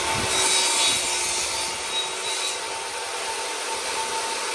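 Benchtop table saw running, its blade cutting through a small block of wood in the first two or so seconds, then spinning on steadily.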